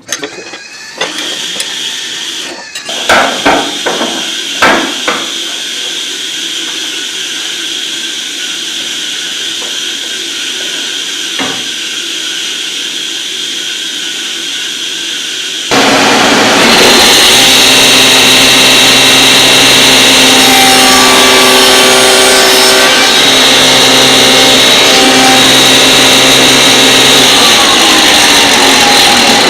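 Table saw fitted with a dado stack: several knocks and a steady lower hum, then the saw running loud from about halfway in, its tone shifting as it cuts a dado.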